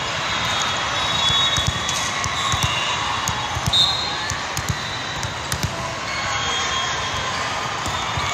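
Indoor volleyball tournament noise echoing in a large hall: a steady din of crowd and play from many courts, with volleyballs bouncing and being struck as sharp thuds, and short high squeaks scattered through it.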